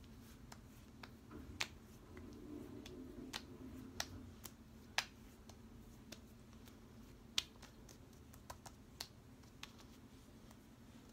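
Fingertips patting and tapping serum into the skin of the face: about a dozen sharp, irregular pats and slaps, a few of them louder than the rest.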